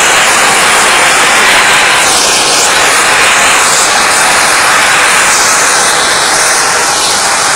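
Natural gas rushing out of an oil well under high pressure in a blowout: a loud, steady jet-like hiss that does not let up.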